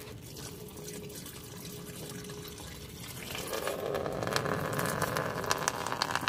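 Old coolant starting to run out of the opened radiator drain of a 2001 Chevy Silverado, a liquid splash that swells about three seconds in and carries many small splatter ticks.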